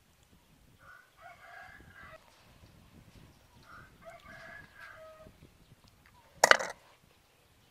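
A rooster crows twice in the background, each crow about a second and a half long. About six and a half seconds in comes one short, loud noise close to the microphone, the loudest sound here.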